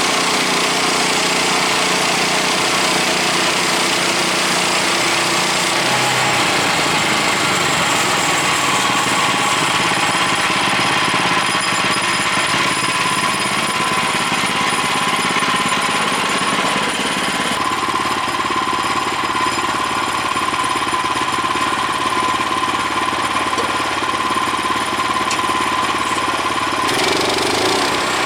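Woodland Mills HM126 portable bandsaw mill running steadily, its small gas engine under load as the band blade saws through a cottonwood log. The engine note shifts a few times.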